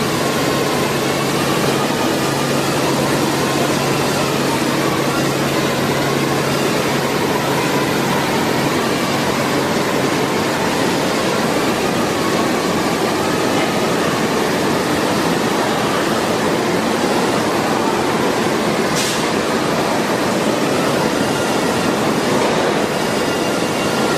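Loud, steady rushing noise of factory machinery, with a faint low hum that fades out about nine seconds in.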